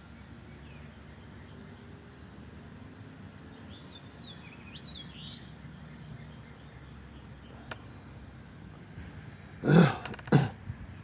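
Faint songbird chirps, a few short calls about four to five seconds in, over a steady outdoor background. Near the end come two loud, short bursts of noise about half a second apart, much louder than the birds.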